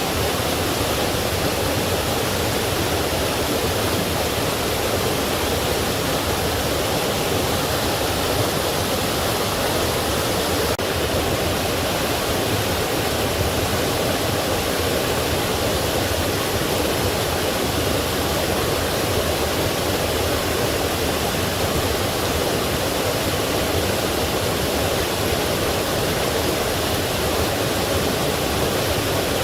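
Forest stream flowing, a steady, unbroken rush of water.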